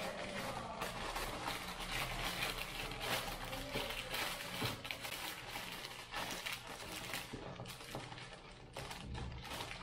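Parchment paper crinkling and rustling in irregular crackles as it is pressed and folded down over the rim of a stainless-steel pan.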